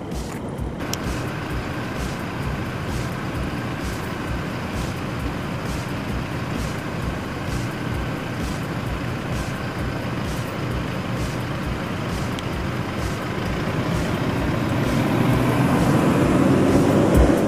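Toyota off-road vehicles driving over a gravel test track, their engines running, growing louder near the end. Background music with a steady beat plays underneath.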